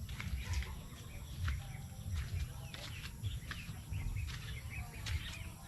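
Outdoor rural ambience: scattered short bird chirps over soft low thumps and clicks.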